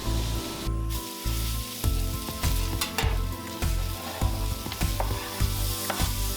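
Food sizzling on a flat-top griddle, with sharp scrapes and clicks of a spatula working it. A background music track with a steady low beat runs underneath.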